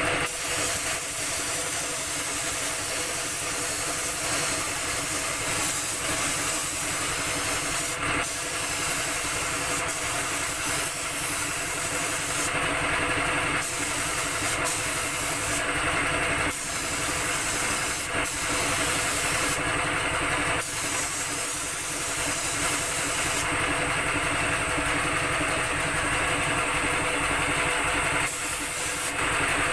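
Air compressor running with a steady hum, while a paint spray gun hisses in several bursts of a second or so, with a longer spray of a few seconds near the end.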